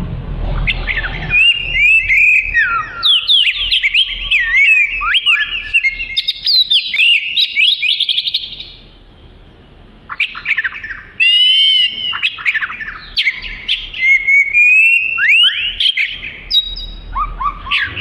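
Oriental magpie-robin (kacer) singing a long, varied song of rapid whistles and chirps, with a pause of about a second and a half just before the middle.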